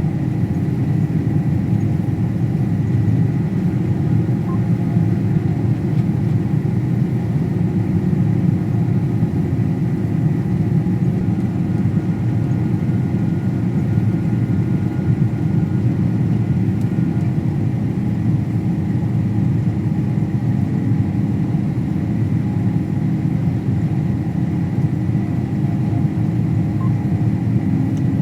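Combine harvester running steadily while cutting wheat: a constant low drone with a faint, steady high whine above it.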